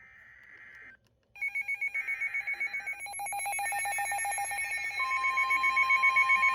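NOAA weather radios going off for a new warning: rapid, pulsing electronic alert beeps start about a second and a half in. A steady tone near 1 kHz, the weather radio's warning alarm tone, joins about five seconds in.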